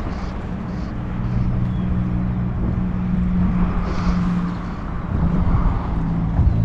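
A steady low engine hum whose pitch drifts slightly.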